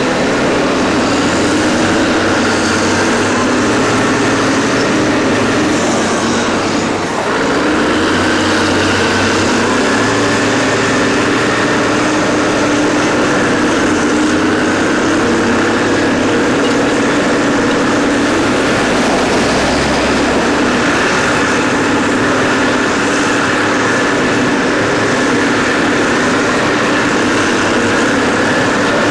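Cat 992C wheel loader's large diesel engine working under load, its note rising and falling as it dumps, reverses and drives back into the rock pile, with a Cat 777 haul truck's diesel running alongside. The sound is loud and continuous, with a brief dip about seven seconds in.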